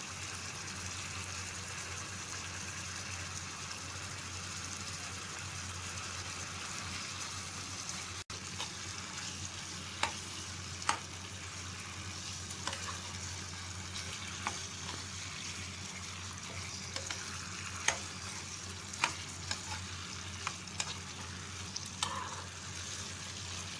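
Mutton liver sizzling in oil in a kadai with ginger-garlic paste, stirred in the pan: a steady frying hiss, with sharp ticks now and then in the second half.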